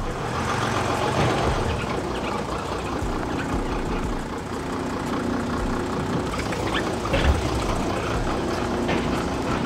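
Lowered Mercedes E-Class coupé rolling slowly with its engine running, its front suspension giving a couple of drawn-out squeaks, only faint this time. The owner puts the squeak down to dry tie-rod-end rubber boots.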